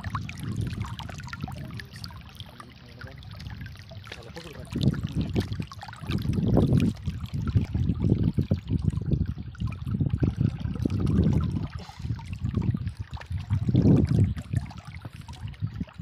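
Shallow stream water trickling over rocks, with hands stirring the water and scattered small clicks of stones. Louder, irregular low rumbles on the microphone come and go throughout.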